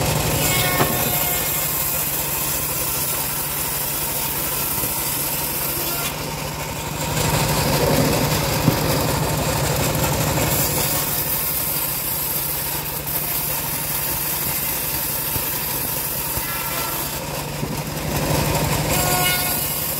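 Homemade bandsaw mill driven by a single-cylinder stationary diesel engine, running steadily while the band blade rips dry acacia wood into boards. The cutting grows louder for a few seconds in the middle and again near the end.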